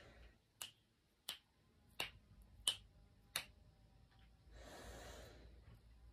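Fingers snapping five times in an even rhythm, about one snap every two-thirds of a second, followed a little later by a brief soft hiss.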